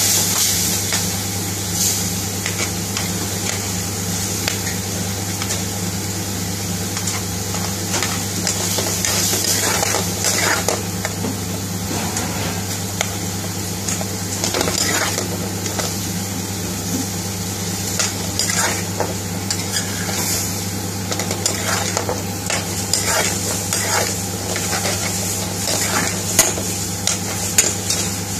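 Curry of chicken tikka pieces and base gravy sizzling in a frying pan while it is stirred, a metal utensil scraping and clinking against the pan throughout, with a few sharper clanks near the end.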